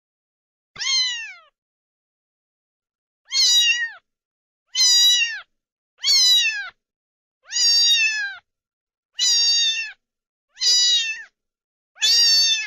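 A cat meowing over and over: eight high calls, each falling in pitch at its end, coming about one every second and a half.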